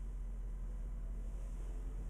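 Room tone: a steady low hum with a faint hiss, with no distinct sounds of movement.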